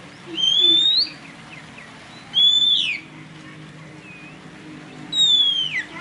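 Oriental magpie-robin singing: three loud, clear whistled phrases about two and a half seconds apart. The first rises in pitch and the last two slide down, with soft faint notes between them.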